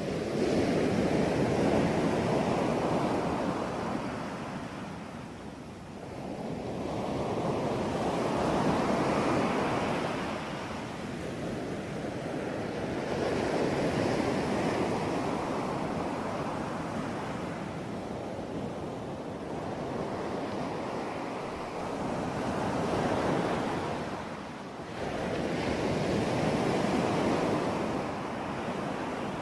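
Ocean waves breaking and washing ashore, a noisy wash that swells and fades in long surges every few seconds.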